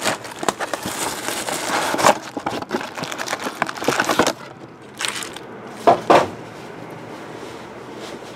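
Cellophane shrink-wrap being torn off a trading-card box and crumpled in the hand, a dense crinkling and crackling for about four seconds. Then it goes quieter, with two short rustles about a second apart.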